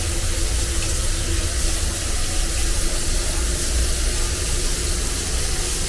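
Water running hard and steadily from a stateroom bathroom fixture, a shower or sink tap turned on full.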